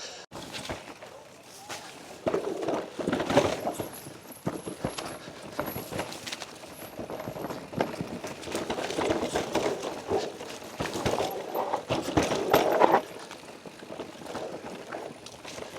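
Mountain bike riding a rocky technical trail: tyres rumbling and clattering over rock, with frequent knocks and rattles from the bike. It grows louder about two seconds in and again from about eight seconds, dropping off suddenly near thirteen seconds.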